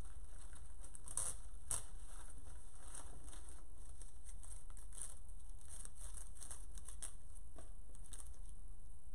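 Artificial silk and plastic foliage rustling and crinkling as boxwood filler stems are worked into a silk-flower arrangement, in a scatter of light crackles, the loudest a little over a second in. A steady low hum runs underneath.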